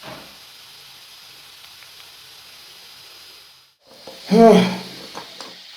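Steady faint hiss of background noise with a thin high whine in it. About four seconds in it cuts out for a moment, and a short vocal sound follows, then a few light clicks.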